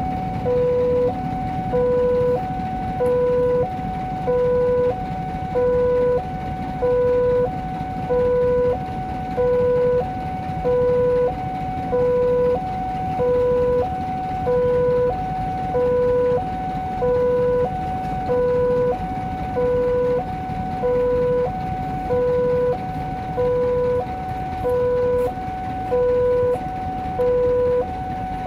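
Railway level crossing alarm sounding from the loudspeaker on the signal post: an electronic two-tone signal, a lower and a higher tone alternating about once a second, warning that a train is coming. A steady low rumble runs underneath.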